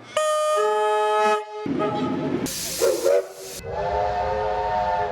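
Multi-tone train horn sounding two blasts: a short chord of several steady notes near the start and a longer one from about two-thirds of the way in, with a short burst of hiss between them.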